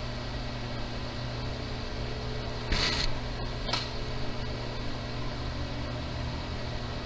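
A steady low hum with a faint hiss, broken by a short hissing burst about three seconds in and a smaller one about a second later.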